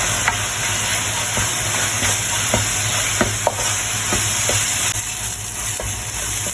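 Ground spice paste with chili powder sizzling in hot oil while being stirred, a steady hiss with scattered light clinks of the stirring utensil against the pan.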